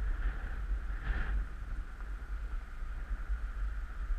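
Wind rumbling on a bike-mounted camera's microphone while cycling, with passing road traffic; a hissy noise swells a few times in the first second and a half, then settles.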